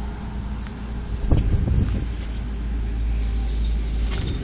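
Wind rumbling on the microphone, with a few light knocks and clicks, the clearest about a second in.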